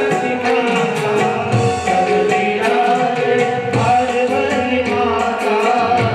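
Devotional aarti music to Shiva: singing over a hand drum and other instruments, with a steady rhythm and repeated falling bass drum strokes.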